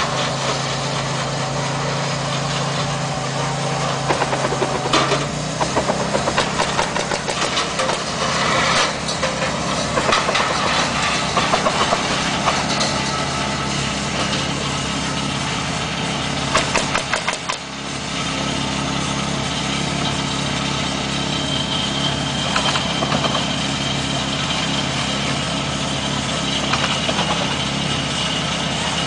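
An engine running steadily, with scattered sharp knocks heard over it.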